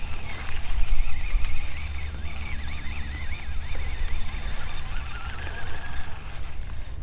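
Low wind rumble and handling noise on a chest-mounted action-camera microphone during a lure retrieve, with a faint wavering whistle from about half a second to four seconds in.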